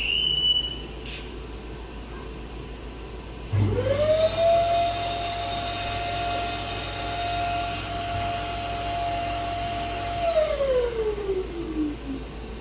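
Cotton candy machine's motor spinning up quickly to a steady high whine, running for about seven seconds, then winding down in a falling glide.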